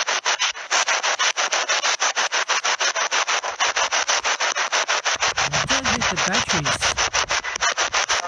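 Spirit box scanning through radio stations: a rapid, even chop of static, about eight bursts a second, with brief snatches of a voice coming through about five seconds in.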